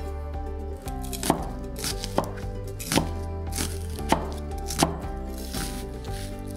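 Cleaver slicing a white onion on a wooden cutting board: a run of about seven sharp knocks as the blade goes through and strikes the board, irregularly spaced at roughly one or two a second.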